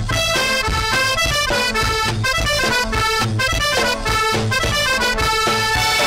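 Norteño band playing an instrumental passage without singing: accordion carrying the melody over a steady bass beat.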